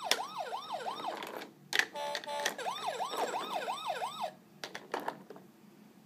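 Fisher-Price Little People Lights & Sounds fire truck's electronic toy siren, sounding in two bursts of quick rising-and-falling wails, about two and a half a second, with a click between the bursts; it stops about four seconds in.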